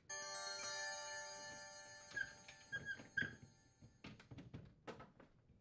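A glass refrigerator shelf ringing after a knock, the ring fading over about two seconds, then the plastic shelf frame and drawer squeaking softly and clicking several times as they are handled and lifted out.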